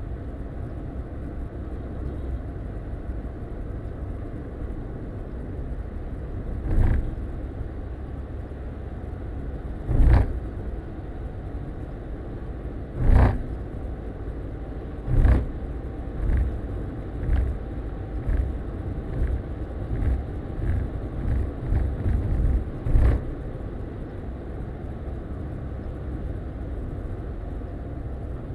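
Car cabin road noise picked up by a dashcam: a steady low rumble of tyres and engine at highway speed. From about seven seconds in come a series of short thumps, at first a few seconds apart and then in a quicker run of smaller ones, ending about twenty-three seconds in.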